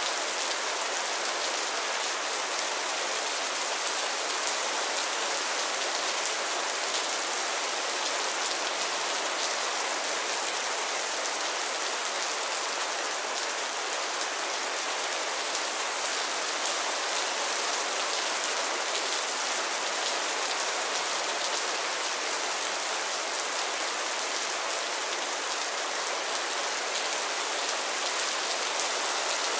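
Mild, steady rain falling on a roof and the ground: a constant even hiss dotted with faint individual drop taps.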